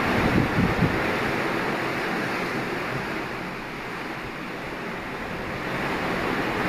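Rough open sea rushing and breaking along the hull of a wooden Viking longship under sail, with strong wind. Gusts buffet the microphone in the first second.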